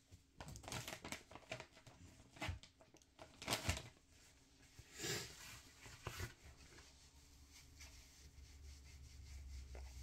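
A tissue being handled, unfolded and rubbed, giving soft rustles and crinkles with a few louder crackling swishes in the first half. A faint low rumble rises near the end.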